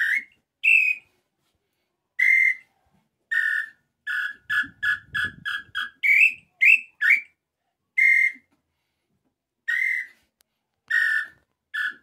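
A hand-held tinamou call (pio) blown to imitate the inhambu pé-roxo (Tataupa tinamou): separate whistled notes and runs of quick short notes, about four a second, with a few higher rising notes in the middle.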